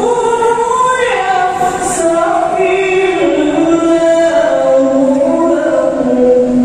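A choir singing a slow song with long held notes, amplified through the loudspeakers of a large indoor arena, closing on a long held note near the end.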